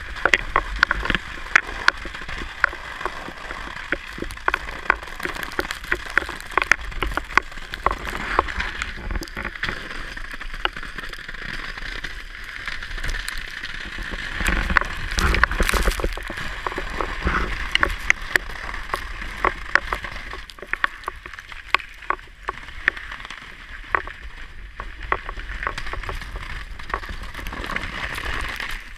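Car tyre rolling through water and slush on wet lake ice, heard close to the front wheel: a constant splashing hiss under a dense stream of crackles and clicks from ice and spray. It swells louder about fifteen seconds in and eases off toward the end.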